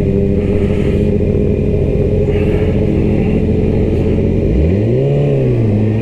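Yamaha R6 sport bike's inline-four engine running steadily at low revs, then revving up sharply about four and a half seconds in and settling at a higher pitch.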